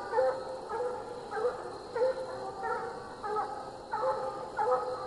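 Treeing walker coonhounds barking in a steady rhythm, about two barks a second, with each bark short and bending in pitch.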